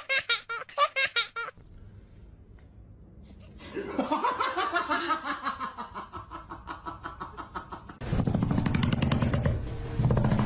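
People laughing in short repeated bursts. Near the end there is a loud run of fast, even pulses.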